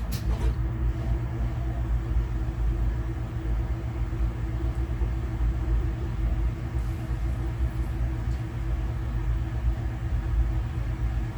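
Steady low mechanical hum, with a brief hiss right at the start.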